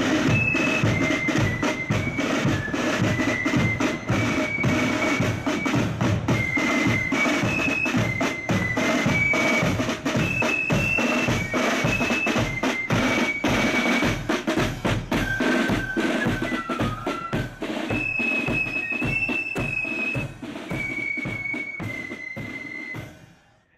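Marching flute band playing a tune: flutes carry a high stepping melody over snare drums and a bass drum beating time. The drumming thins out near the end and the music then stops.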